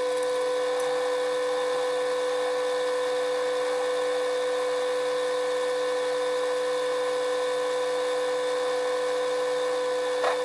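Metal lathe boring out a drilled hole with a boring bar: a steady, high-pitched whine at one unchanging pitch that starts and stops abruptly.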